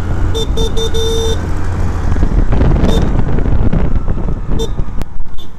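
Riding noise on a moving scooter: steady low wind rumble on the microphone with the engine and road running underneath. There are a few short horn toots in the first second and a half, the last one longer, and one more brief toot near the end.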